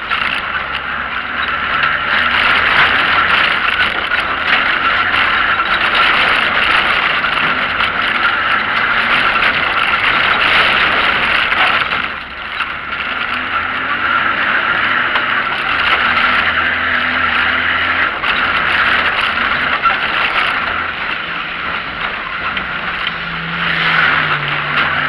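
Off-road car's engine running under hard driving on a dirt track, heard from inside the cabin, its revs rising and falling, with steady tyre and road noise. The engine eases off briefly about halfway through.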